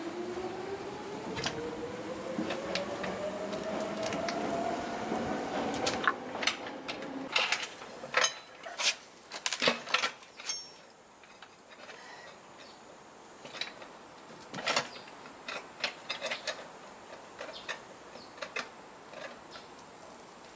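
A mechanical whine rising steadily in pitch for about six seconds, then a run of sharp clicks and knocks, with scattered lighter clicks later, from hand work on a motorcycle wheel.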